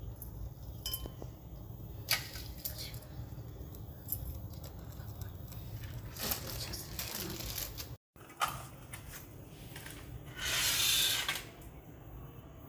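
Small clinks and rustles as plates and puja offerings are handled on a floor, over a low steady rumble. About ten and a half seconds in comes a second-long hissing rustle, the loudest sound.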